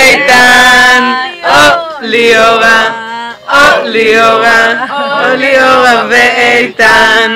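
Loud singing close to the microphone: voices holding notes in long phrases, with short breaks for breath about every two seconds.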